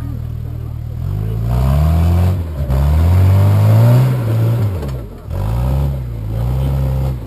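Off-road trial 4x4's engine revving hard under load as it climbs a steep dirt slope. The revs rise about a second in, rise and fall several times, dip briefly about five seconds in, then climb again.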